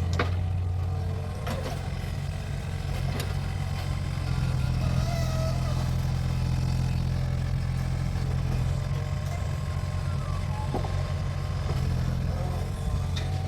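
Mini excavator engine running steadily under work, with a few sharp knocks about a second and a half and three seconds in and again near the end.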